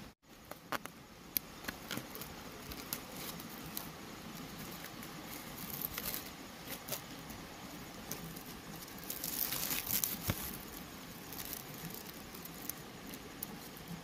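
Clear plastic grafting film crinkling and rustling as it is wrapped and pressed around a tree trunk, with scattered sharp crackles, denser for a second or so near the middle.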